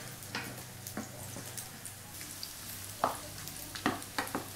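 Frikadellen frying in oil in a frying pan, sizzling, while a spatula scrapes and knocks against the pan several times as they are turned.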